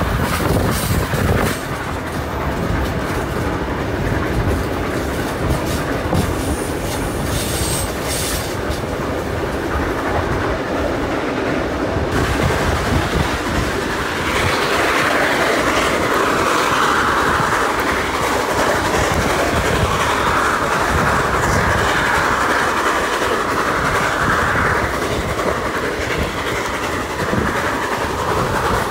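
Heritage passenger train carriage rolling along the track, heard from an open carriage window: a steady rumble and clatter of wheels on the rails. The wheel noise turns harsher and brighter for about twelve seconds from around the middle, as the train rounds a curve.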